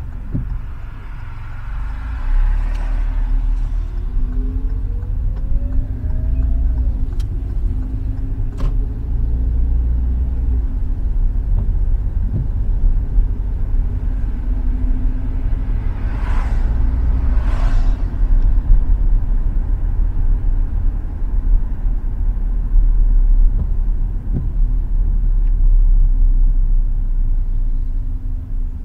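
Car driving on a wet road, heard from inside the cabin: a steady low rumble of engine and tyres. A few seconds in, the engine pitch rises as the car pulls away from a stop. Two short whooshes come around the middle.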